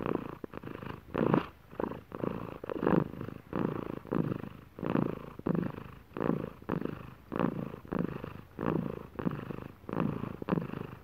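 Domestic cat purring close to the microphone, in an even rhythm of in- and out-breaths, about two pulses a second.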